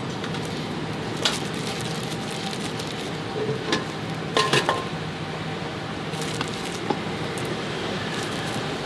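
Handling sounds from bagging egg cakes: a few short clicks and crinkles from metal tongs and clear plastic bags, most of them in a cluster around the middle, over a steady background hum.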